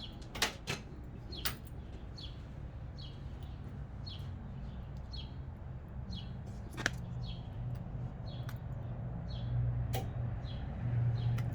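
A bird chirping over and over in short falling notes, about one a second, over a low steady hum that grows louder in the second half, with a few sharp clicks.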